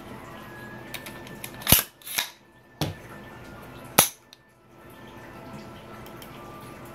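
Sharp metallic clacks of AR-15 upper and lower receiver parts being handled and fitted together: four clicks between about two and four seconds in, the first and last loudest.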